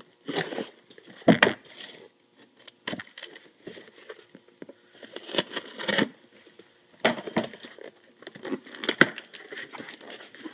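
Cardboard shipping box being handled and opened by hand: irregular scrapes, rustles and crinkles of cardboard and tape, with a few sharper knocks, the loudest about a second in and near the end.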